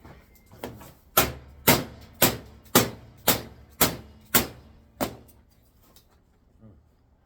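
A run of about eight sharp, hard knocks on an LCD TV's plastic housing, roughly two a second, then it stops. The piece is being worked loose and won't come off, because hidden screws still hold it.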